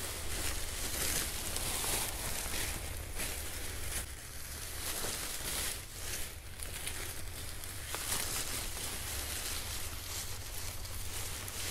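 Nylon paramotor wing fabric rustling and crinkling as the wing is pulled across the grass and gathered up, in uneven swells over a steady low rumble.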